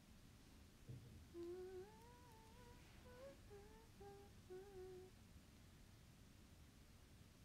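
A woman faintly humming a short wandering tune for about four seconds, starting about a second in.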